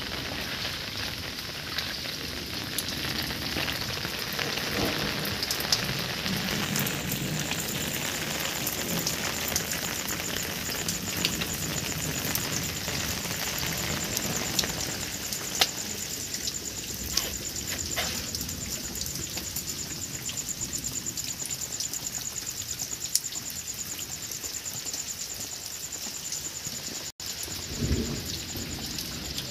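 Steady heavy rain falling and splashing, with sharp drop impacts ticking now and then and a dull thump near the end.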